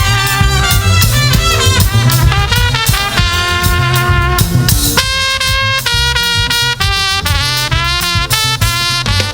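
Live gospel band playing an instrumental passage: drum kit and bass under held melody notes, the melody climbing in steps near the end.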